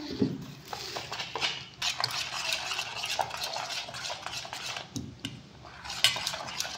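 A steel spoon stirring thin rice-flour batter in a stainless steel bowl, with quick clinks and scrapes against the bowl's sides and a short lull about five seconds in.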